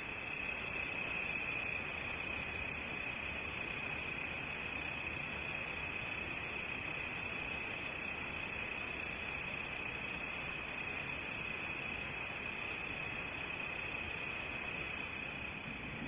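Crickets trilling steadily at night as one continuous high-pitched note, over a constant hiss from the webcam microphone.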